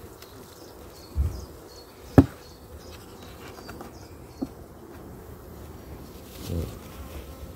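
Honeybees buzzing around an open hive. A sharp knock about two seconds in, with a softer thump before it and a smaller knock later, as the plastic hive feeder tray is handled.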